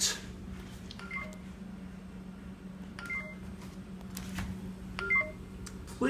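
Neato robotic vacuum sounding its stuck alert: a short multi-tone electronic beep three times, about two seconds apart, signalling that it is wedged and needs its path cleared. A steady low hum runs underneath.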